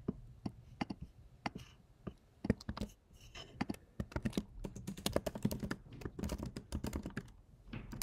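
Typing on a computer keyboard: scattered keystrokes at first, then a quicker run of typing from about halfway through.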